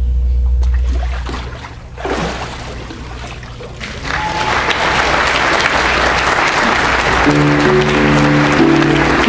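Low rumble of water moving in the baptismal tank as the candidate is immersed and raised, then a congregation applauding and cheering from about four seconds in, with a band starting to play sustained chords near the end.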